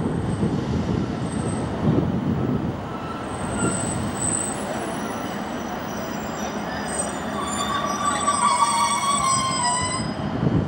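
Class 153 diesel railcar running slowly along a curved platform line with a low engine rumble. From about three seconds in, a wavering high-pitched squeal builds and is loudest near the end as the unit draws to a stop.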